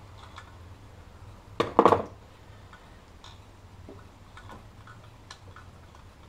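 Pliers working the spring clamps on the throttle body's coolant hoses: scattered light metallic clicks and ticks, with one louder, brief noise just under two seconds in, over a steady low hum.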